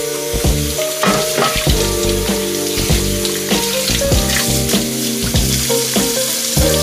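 Soft background music of held notes and chords with a steady crackling, sizzle-like hiss running through it.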